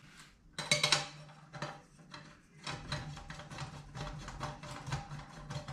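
Wooden handle being fitted and screwed onto a lightweight frying pan: a couple of sharp knocks about a second in, then a quick run of small clicks and scraping as the handle is turned.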